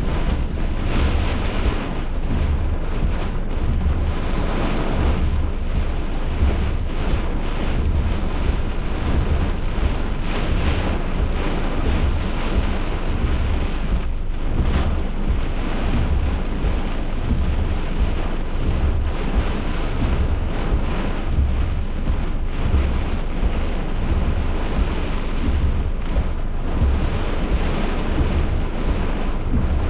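Severe thunderstorm: steady heavy rain and wind, with a constant low rumble of gusts buffeting the microphone.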